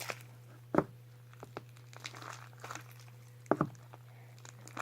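Hands working sticky, overly clumpy slime made with cornstarch: a few short wet clicks and smacks, two sharper ones about a second in and later on, over a steady low hum.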